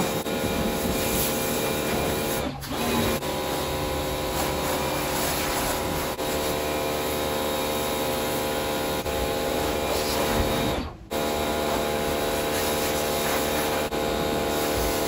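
Bosch Aquatak 125 electric pressure washer running, a steady motor-pump whine mixed with the hiss of the water jet, dropping out briefly twice.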